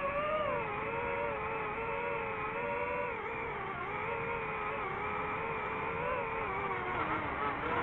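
DJI FPV quadcopter's electric motors and propellers whining steadily in flight, the pitch wavering up and down slightly as the throttle changes.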